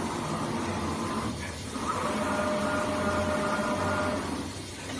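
CNC flatbed plotter running, its tool head moving over the panel over a steady machine hum. The hum dips briefly about a second and a half in and again near the end. Between those dips a steady whine sounds for about two seconds.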